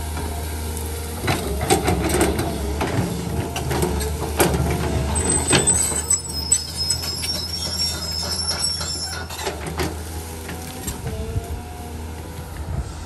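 Cat 320 hydraulic excavator's diesel engine running steadily under load as its bucket pushes and tears through dry brush and saplings. Branches crack and snap through the first half, and a high squeal sounds for a few seconds midway.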